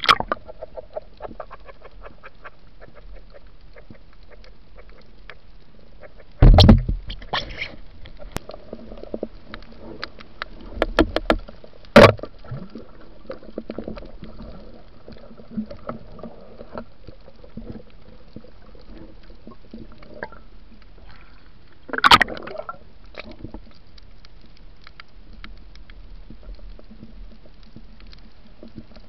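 Underwater ambience on a reef at night, heard through the camera's housing. A faint steady crackle of fine clicks is broken by a loud thump about six seconds in, a cluster of knocks ending in a sharp click around eleven to twelve seconds in, and another loud knock and rustle about twenty-two seconds in.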